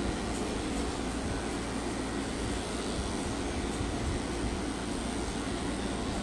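Electric dog-grooming equipment running steadily with a constant motor whir and low hum.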